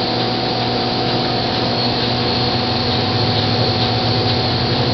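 Steady mechanical hum from a running machine, even and unchanging, with a low tone under a wash of noise.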